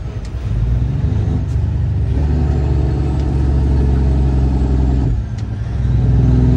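Semi truck's diesel engine running under way, heard from inside the cab. Its sound drops off briefly twice, right at the start and about five seconds in, each time coming back within about a second, as with a gear change.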